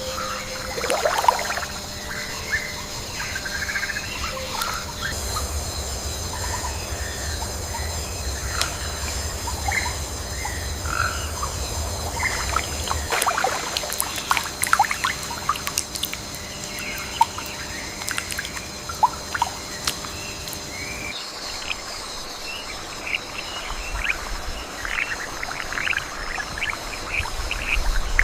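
Tropical forest ambience: many birds chirping and calling in short notes over a steady high-pitched drone.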